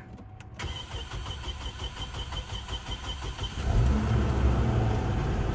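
The 3.7-liter inline-five of a 2007 Chevy Colorado cranking on the starter for about three seconds, then catching and running. It is a successful start after rodent-chewed wiring that had caused a no-crank, no-communication fault was repaired.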